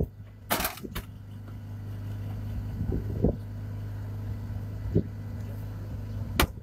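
An engine idling with a steady low hum, with a short hiss about half a second in, a few dull knocks, and a sharp click near the end.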